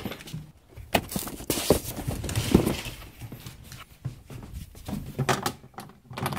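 Scattered knocks and clicks with short bursts of rustling noise, irregular and without a steady rhythm.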